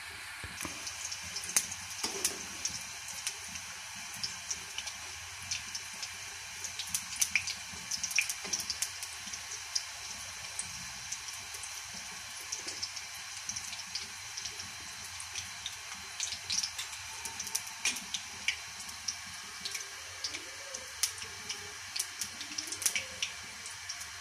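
Spring rolls frying in hot oil in an iron kadai: a steady sizzle with irregular, sharp crackling pops.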